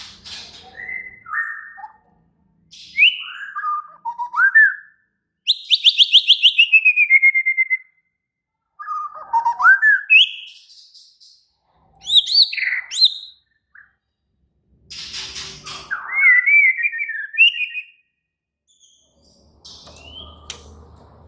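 White-rumped shama singing in short, varied phrases of loud whistles and pitch glides separated by brief pauses, with a fast run of evenly spaced notes falling in pitch about six seconds in. This is the agitated, fired-up song of a shama in fighting mood.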